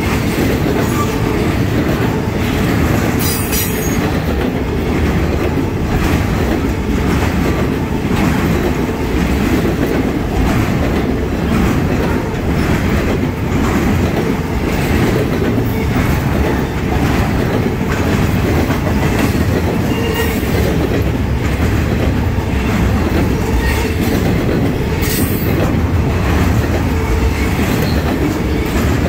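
Norfolk Southern intermodal freight train's cars, highway trailers riding on spine cars, rolling steadily past at close range: a continuous rumble with the clickety-clack of wheelsets over the rail joints. Brief high wheel squeals come about three seconds in and again near the end.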